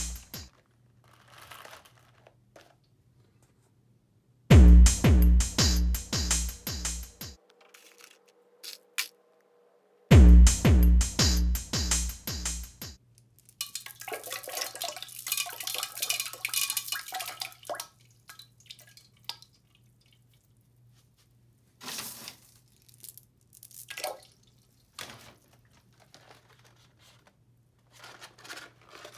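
Two short bursts of electronic music with a drum-machine beat, the second ending about 13 seconds in. Then a handful of M&M's candies is poured from a hand into toilet-bowl water for a few seconds, followed by a few separate small splashes later on.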